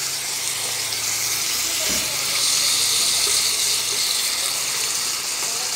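Marinated pork steak slices sizzling steadily as they fry in a little oil in a pan, with a light knock about two seconds in.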